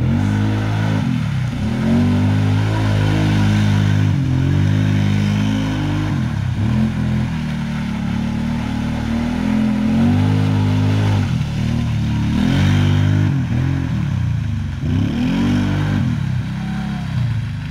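Side-by-side UTV engine revving hard as it spins donuts in deep mud, the pitch climbing and then dropping back several times.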